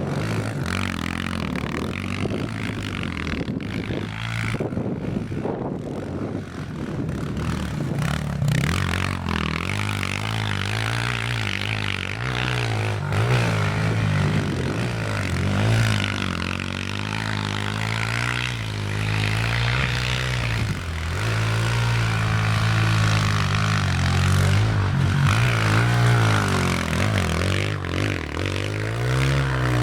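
Small single-cylinder four-stroke pit bike engine revving up and down again and again as the bike churns through deep snow.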